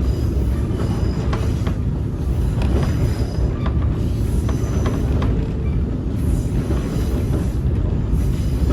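Passenger train rolling along the track, heard from aboard: a steady low rumble with irregular knocks from the wheels over the rails.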